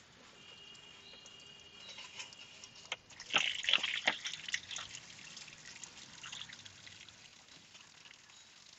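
Old, rusty coolant running out of a car radiator's opened drain into a plastic-lined strainer. A burst of clicks and splashes about three to five seconds in marks the drain being worked open and the flow starting, followed by a steady trickling.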